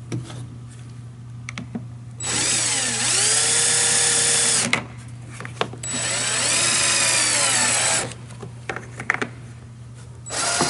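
Cordless drill with a Phillips bit driving screws through a plastic fender flare into a cooler's body: three runs of the motor, two of a couple of seconds each and one starting near the end, its whine dipping and recovering as each screw bites. Light clicks of handling come between the runs.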